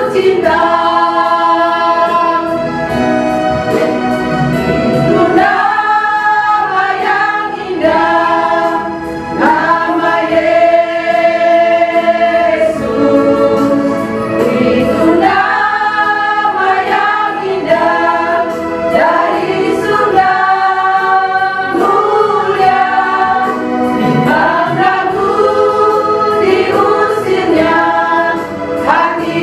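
Women's vocal group singing a Christian hymn in Indonesian together, in sustained phrases with short breaths between them.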